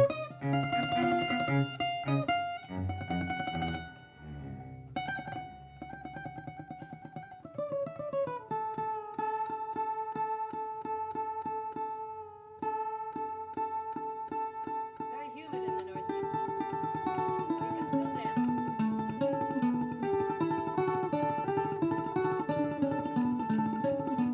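A 10-string bandolim and a cello playing together. Fast picked bandolim notes run over a long held note, and a moving lower melody joins in about two-thirds of the way through.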